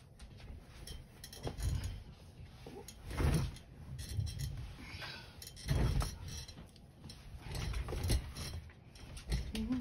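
Heavy denim-and-flannel quilt being shifted and pushed around a sewing machine: irregular rustles and soft bumps of thick fabric, loudest in a few separate swells.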